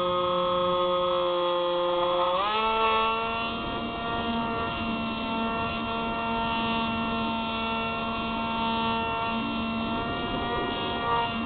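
Steady whine of a small FPV aircraft's electric motor and propeller, heard through its onboard camera with air rushing past. The pitch shifts quickly a little over two seconds in as the throttle changes, then holds steady.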